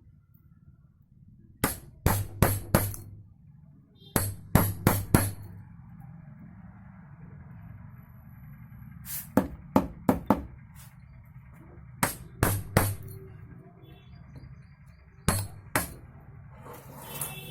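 Sharp taps in quick groups of three or four, several groups a few seconds apart, over steady background music.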